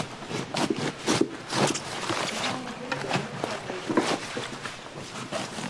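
Knife cutting into napa cabbage heads as they are split in half: an irregular run of sharp crunches and snaps, a couple or more each second, with leaves rustling.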